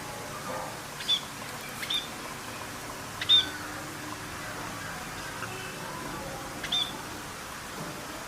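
A parrot giving four short, sharp, high-pitched chirps, spaced a second or more apart, the third the loudest.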